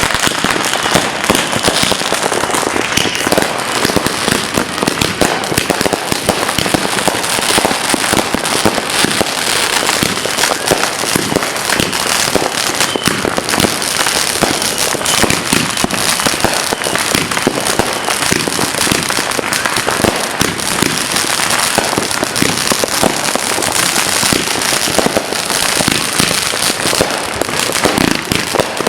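A long string of firecrackers going off, an unbroken rapid crackle of small bangs.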